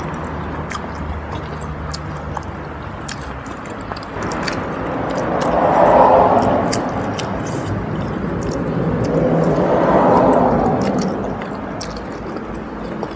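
Close-up chewing and eating sounds, with many short wet mouth clicks, as food is eaten by hand. Two slow swells of rushing noise rise and fade about six and ten seconds in.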